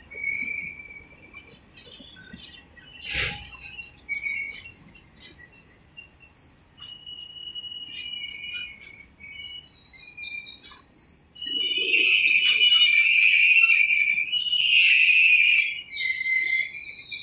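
Steel wheels of passing BOXNHL freight wagons squealing: long, steady, high-pitched squeals that overlap and swell into a louder shrill screech in the last few seconds. A single clank about three seconds in.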